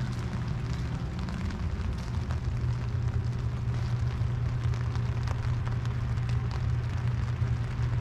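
Steady rain, with many small drop ticks scattered over a continuous hiss, above a low steady rumble.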